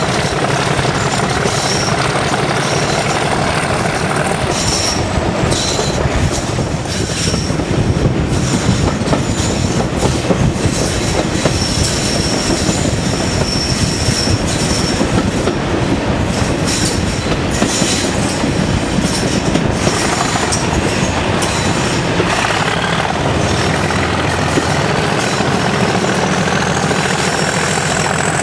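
Passenger coaches running at speed behind a Class 37 diesel locomotive, heard from an open carriage window: wheels clattering over the rail joints and flanges squealing on the curves, with the locomotive's English Electric 12CSVT engine working underneath. A squeal rises steadily in pitch over the last few seconds.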